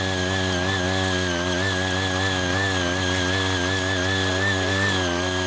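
CY80 mini rotary tiller's small engine running steadily while its eight-blade rotor tills hard, uncultivated soil, its pitch wavering slightly.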